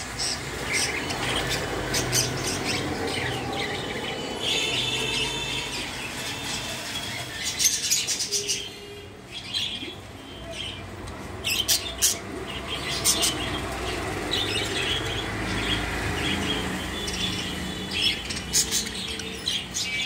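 A flock of caged budgerigars chirping and chattering, with short bursts of wing flapping and sharp clicks about eight seconds in and again around twelve to thirteen seconds.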